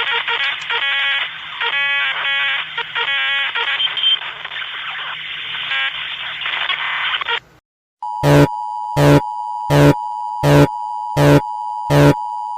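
Emergency alert broadcast audio: a muffled, telephone-quality recording with three short bursts of buzzy data tones about a second apart, cutting out about seven seconds in. After a brief silence a loud alert tone begins, a steady high tone with a harsh pulse about every 0.7 seconds.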